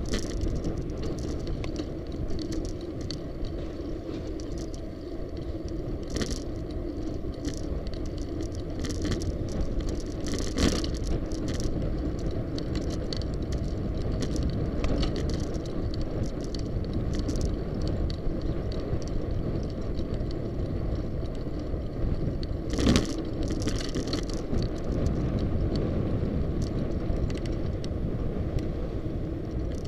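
Bicycle riding over city pavement: a steady low road rumble with the bike and camera mount rattling and clicking over bumps, and one sharper knock about two-thirds of the way through.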